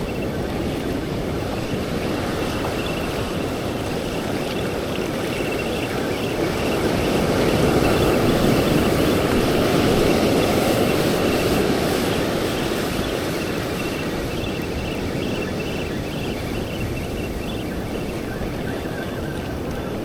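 Ocean surf washing onto the beach with wind on the microphone; a wave surges up louder about a third of the way in and then recedes.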